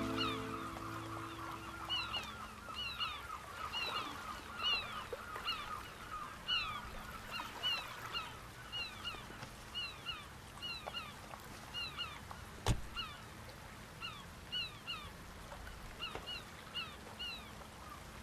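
Seagulls calling over the water: many short cries that fall in pitch, in quick succession, over a faint outdoor hiss. A single sharp click stands out about two-thirds of the way through.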